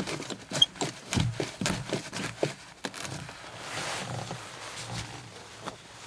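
Handling noise of camera gear on a gimbal tripod head: irregular clicks and knocks as the camera and long lens are set up, busiest in the first three seconds, with a longer rustle about four seconds in and scattered clicks after.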